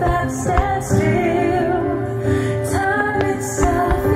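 Music with a female voice singing over sustained chords, with a few short thuds under it.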